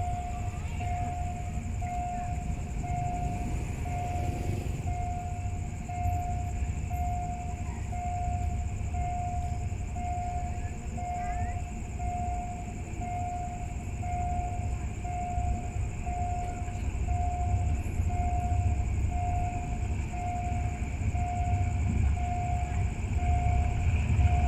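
Level-crossing warning signal beeping at one steady pitch about once a second, over the low rumble of an approaching diesel locomotive that grows louder near the end.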